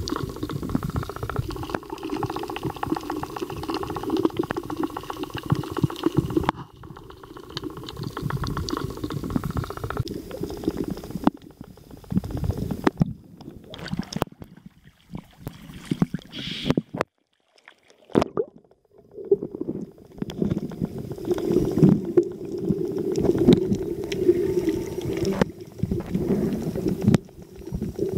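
Muffled underwater rumble with gurgling water and bubbles, as picked up by a camera's microphone below the surface. The sound breaks off briefly several times and comes back.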